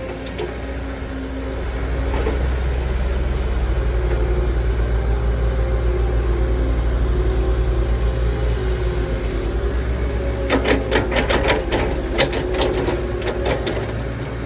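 Heavy diesel engine of construction machinery running steadily, growing louder about two seconds in as it works. A rapid run of sharp clanks and knocks comes near the end.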